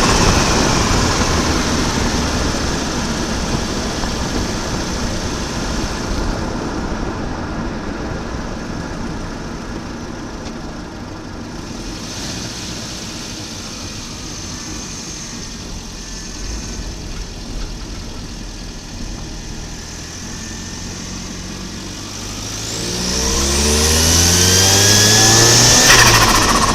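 Volvo 940 Turbo's B230FT turbocharged four-cylinder engine, loud at first and then fading away steadily. About 23 seconds in it accelerates hard again, with the engine pitch climbing and a high whine rising with it, loudest near the end.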